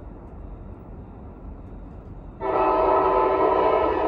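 Air horn of an approaching Buffalo and Pittsburgh diesel locomotive, number 3511, sounding one loud, steady chord. It starts abruptly over a low rumble about two and a half seconds in and is still sounding at the end.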